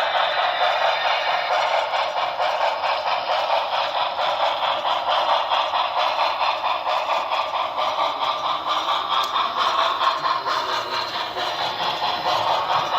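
HO scale Broadway Limited Paragon4 New York Central Hudson model steam locomotive running at 30% throttle: its onboard sound system plays a steady, rhythmic steam chuff over the clatter of its wheels on the track. The chuff may be a little out of time with the wheels.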